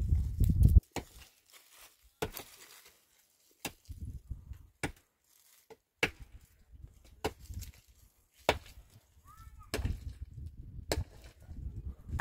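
Pickaxe digging into stony ground, a sharp clack of metal on rock and earth roughly once a second. A low rumble sits under the first second and again near the end.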